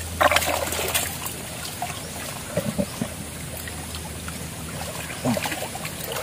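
Muddy creek water sloshing and trickling around a wading man's body as he gropes by hand into a hole in the bank for fish, with splashes about a quarter-second and a second in.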